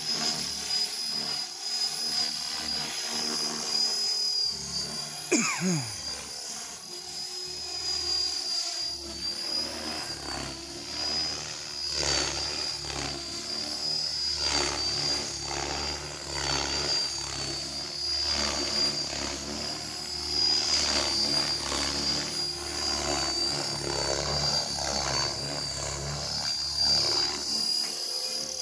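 Electric RC 3D helicopter (ALZRC Devil X360) flying manoeuvres overhead, its rotor blades whooshing in surges that rise and fall as it turns and climbs. A steady high whine runs under it, and a short falling sweep comes about five seconds in.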